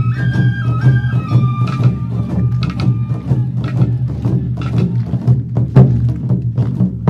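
Awa odori festival accompaniment: a bamboo flute plays a stepped melody for about the first three seconds over a steady, busy beat of drums and struck percussion, and the percussion carries on alone after the flute drops out.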